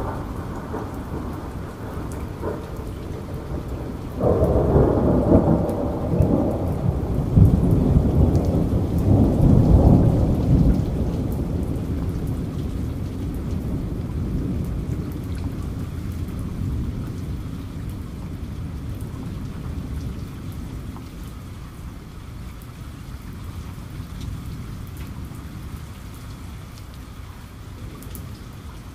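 Steady rain with a long roll of thunder. The thunder breaks in suddenly about four seconds in, swells to its loudest around ten seconds, then dies away slowly under the rain.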